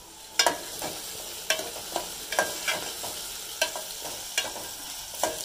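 Sliced onions and cumin sizzling in hot oil in an aluminium pot while a steel ladle stirs them, clinking and scraping against the pot again and again. The sizzle gets louder about half a second in, once the stirring begins.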